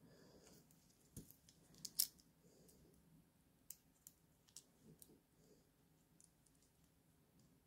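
Faint scattered clicks and light metallic taps of a metal watch bracelet being handled and seated in a link-pin removal tool, the sharpest click about two seconds in.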